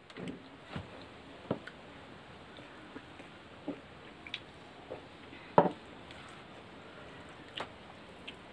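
Eating by hand from steel plates: scattered short clicks, smacks and squishes of fingers working noodles and food and of chewing, with one louder knock a little past halfway.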